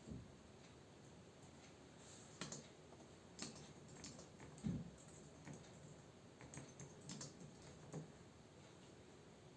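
Faint computer keyboard typing: a brief, irregular run of keystrokes from about two seconds in, with one heavier stroke near the middle, stopping about a second and a half before the end.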